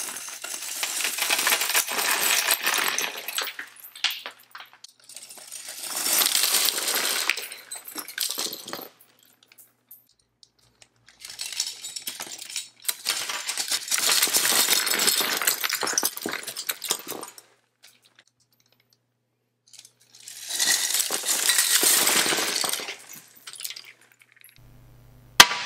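Small plastic Technic-style building pieces clattering and clicking against each other in four long, dense stretches, with silent gaps between, then one sharp click near the end.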